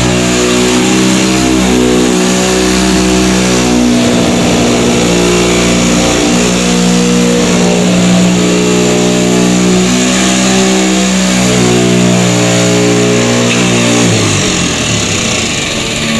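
Handheld electric sheet metal shear running and cutting through a steel sheet: a steady mechanical drone whose pitch shifts in steps as the cut goes on.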